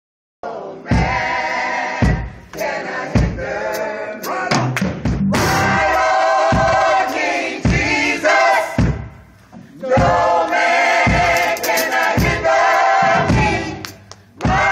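Gospel choir singing with band accompaniment, a drum beat thumping about once a second under the voices; the singing dips briefly about nine seconds in.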